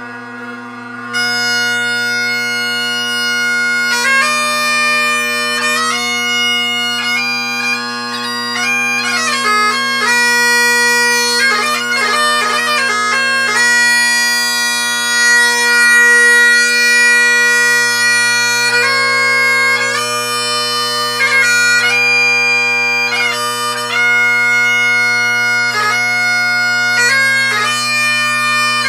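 Great Highland bagpipe with a sheepskin bag being played: the three drones sound a steady bass chord, and about a second in the chanter strikes in and plays a tune over them, with quick grace notes between the melody notes.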